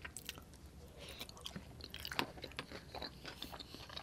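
Close-miked mouth sounds of someone chewing Cajun fettuccine: faint, wet clicks and smacks, with one sharper click about two seconds in.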